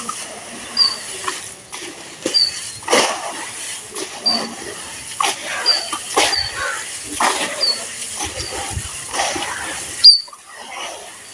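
Gritty charcoal sand-cement chunks being crumbled in water: wet, uneven crunching and crackling with sharp clicks, and one loudest snap about ten seconds in, after which the crumbling goes quieter.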